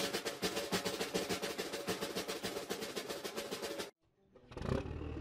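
Fast snare drum roll, about eight strikes a second, that cuts off suddenly about four seconds in. A steady low background music bed comes in near the end.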